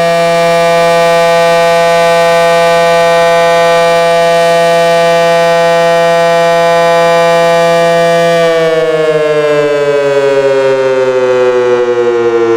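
Early Federal Signal 500 electromechanical siren holding a steady wail at full speed, then winding down about eight seconds in, its pitch falling steadily as the rotor slows after the power is cut.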